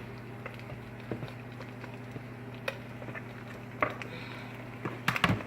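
Light clicks and taps of a utensil on cookware as steamed broccoli is moved into the pan, with a cluster of sharper knocks about five seconds in, over a steady low hum.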